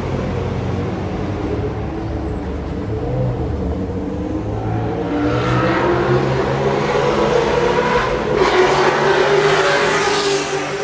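Car engine at speed on a race track, accelerating with its pitch rising and growing louder through the second half, broken briefly about eight seconds in.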